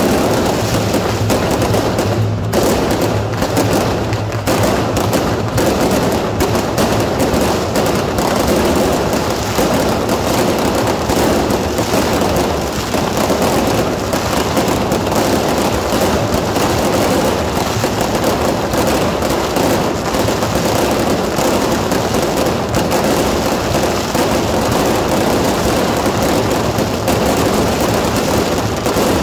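Fireworks going off in a dense, unbroken barrage: rapid crackling and popping from firecrackers and ground fireworks mixed with the bangs of aerial shells bursting, with no pause.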